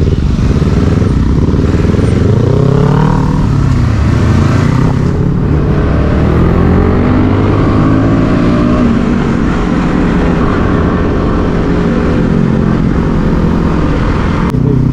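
Motorcycle engine pulling away from a stop in traffic and accelerating through the gears, its pitch climbing and dropping back several times as it shifts up.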